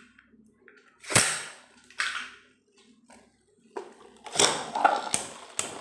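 Plastic Beyblade spinning tops being fitted to their launchers and launched into a homemade cardboard stadium: a sharp click about a second in and a short rasp after it, then a longer run of clattering and clicks near the end as the tops spin and hit each other and the cardboard.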